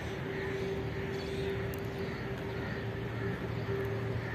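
Steady distant engine drone: a low rumble with one held hum, as from city traffic or an aircraft overhead.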